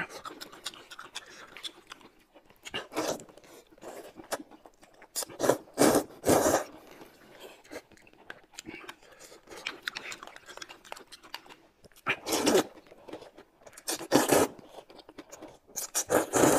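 Close-up eating sounds: noodles in broth slurped from a bowl in short loud slurps every few seconds, with quieter chewing between.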